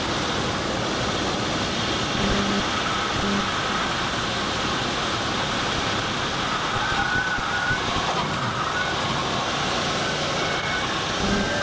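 Steady engine and airflow noise inside the cabin of a small light airplane as it lands and rolls along the runway, with a faint wavering high tone for a moment just past the middle.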